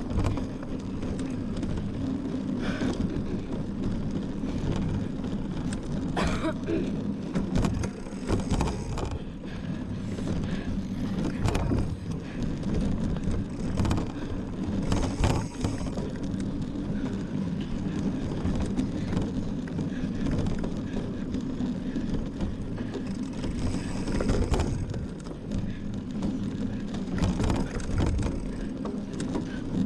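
Mountain bike ridden over rough off-road ground: a steady low rumble from tyres and rider's movement, with several rattles and knocks from the bike over bumps.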